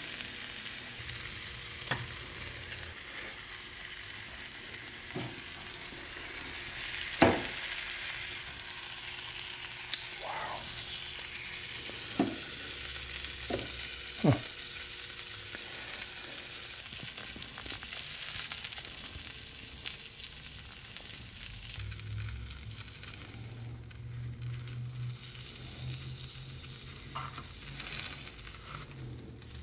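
A burger sizzling between the hot plates of a 1000 W electric UFO burger press, a steady frying hiss, with several sharp clicks and knocks as the press is opened and the burger is handled.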